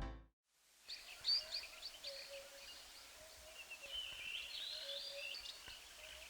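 Faint outdoor birdsong ambience: scattered short, high chirps and twitters from small birds, with a low, on-and-off whistle-like note running beneath them.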